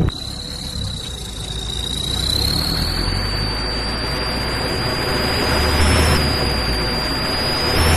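Engine exhaust fitted with a fake turbo whistle: a steady high whistle over the running engine. The whistle's pitch rises slightly and the sound grows louder over the first few seconds as the revs climb, with a short click right at the start.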